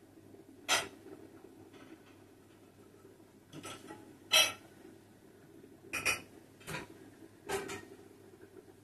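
Kitchenware clinking and clattering as it is handled: about six short knocks and clinks, the loudest about four and a half seconds in, over a faint steady hum.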